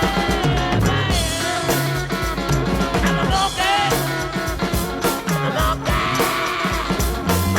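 Rock music with guitar, a steady beat and a singing voice.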